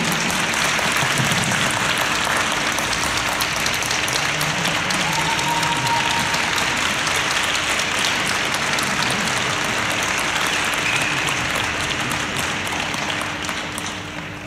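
Arena audience applauding, a dense steady clapping that fades away near the end.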